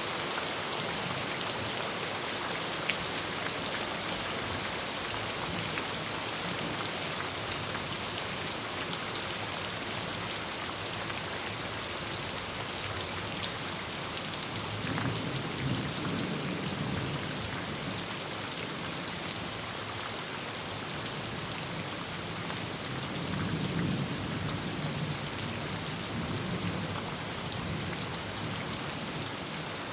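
Heavy rain falling steadily on a tin roof, with thunder rumbling low twice, once about halfway through and again a few seconds later.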